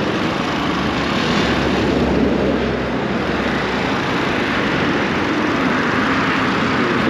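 Highway traffic going by at speed: a steady rush of tyre and engine noise.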